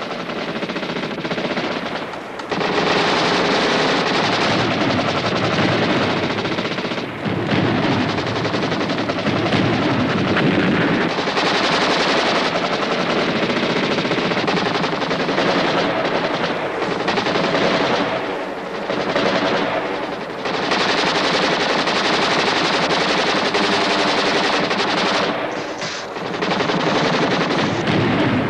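Continuous heavy gunfire: machine-gun and rifle fire running together without a break, with a few brief lulls.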